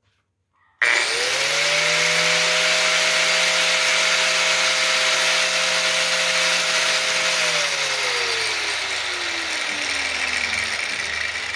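Bosch GWS 700 mini angle grinder switched on about a second in: its motor spins up fast to a steady high whine and runs free with no load. After several seconds the pitch falls steadily as the disc winds down.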